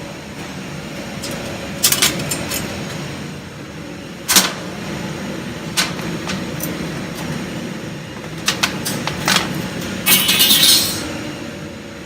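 CNC laser cutting machine running while it cuts a pattern in stainless steel sheet. A steady hum with a steady tone is broken by sharp, short hissing pops several times, and a hiss lasting under a second comes near the end.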